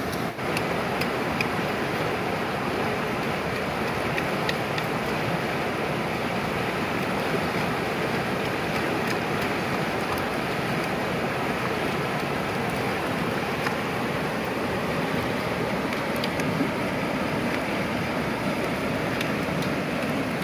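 Steady rushing of a fast, rocky river's rapids, with a few faint clicks over it.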